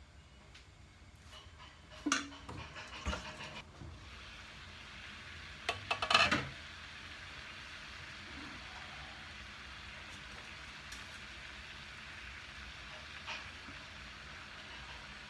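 Cookware clattering, with sharp knocks about two and three seconds in and a louder cluster about six seconds in, over a steady hiss from a steamer on the boil.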